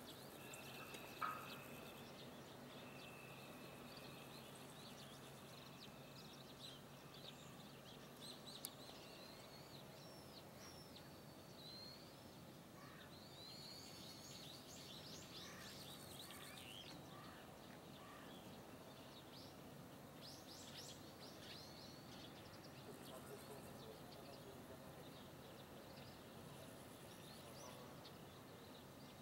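Faint outdoor ambience with small birds chirping: many short, quick sweeping chirps, busiest in the middle stretch, over a low steady background hiss.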